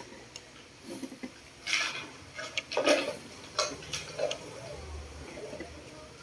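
A hand pressing and rubbing a sheet of bond paper down onto a table to take a print: irregular paper rustles and light taps.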